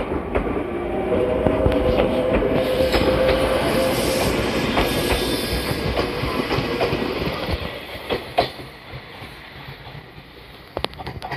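Ueda Electric Railway 1000-series electric train (ex-Tokyu 1000) running past close by and pulling away: a steady whine with wheels clicking on the rails. It is loudest in the first half and fades as the train moves off, leaving a few faint clicks near the end.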